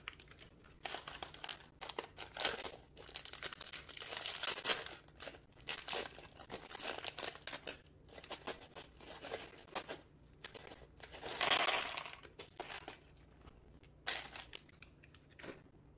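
Clear plastic parts bag crinkling as it is handled and shaken, with small plastic building-brick pieces spilling out into a cardboard box. The rustling comes in irregular spells, loudest about eleven and a half seconds in, and stops shortly before the end.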